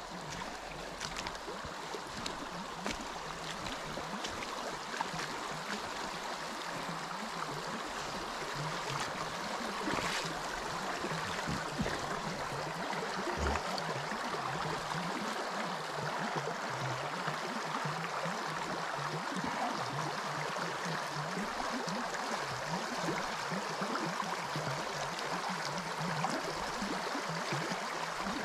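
Muddy creek water running over shallow riffles: a steady rush of flowing water.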